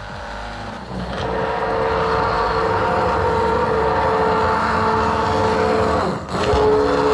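Immersion blender puréeing a pot of soup, its motor whirring steadily. It rises in level about a second in and drops out briefly near the end before running again.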